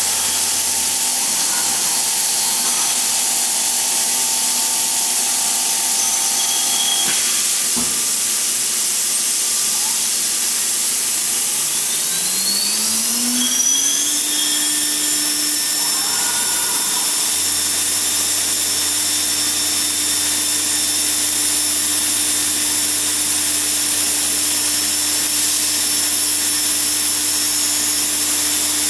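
CNC glass slotting and milling machine running: a steady loud hiss with whining motor tones. About twelve seconds in, a motor whine rises in pitch over about two seconds, then holds steady, as the motor speeds up.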